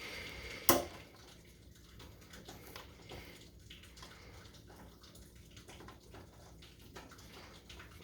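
Hand tools being handled at a pipe: one sharp clack about a second in, then faint scattered clicks and handling noise.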